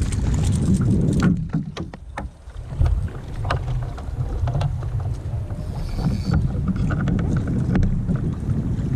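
Water-and-wind rumble around a kayak on the sea, with scattered small clicks and knocks. The sound drops away briefly about two seconds in, then comes back.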